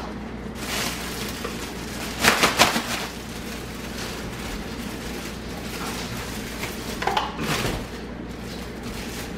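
Plastic slow cooker liner rustling and crinkling as it is fitted into a crockpot, in three short bursts, the loudest about two seconds in.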